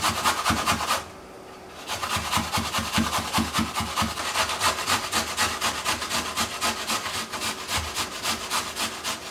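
Carrots being shredded on a stainless steel box grater standing on a wooden cutting board: quick, rhythmic rasping strokes, several a second, with a brief pause about a second in.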